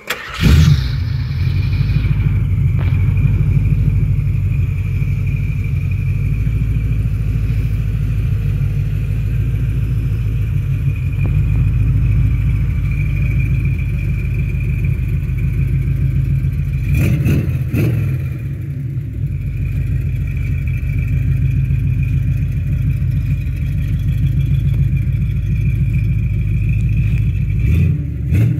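Lifted 1985 Jeep CJ-7's engine starting up and then idling steadily and loudly through its exhaust.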